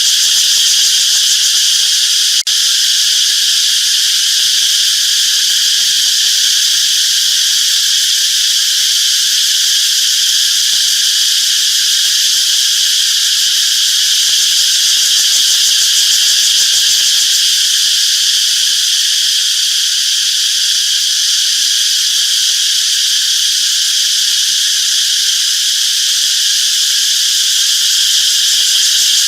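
Cicadas singing: a loud, steady, continuous high-pitched buzz that holds level throughout, with one brief click about two seconds in.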